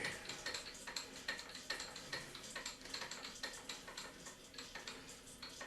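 Faint, irregular light metallic clicks and clinks of steel parts being handled and set in place on a milling machine table.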